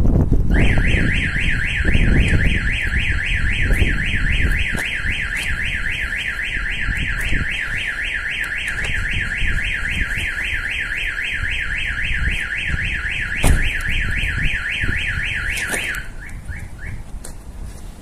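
Starline van alarm siren set off by a door opened while the system is armed: a loud electronic siren of fast rising sweeps repeating several times a second, cutting off about sixteen seconds in with a few trailing chirps. A sharp knock comes just before it stops.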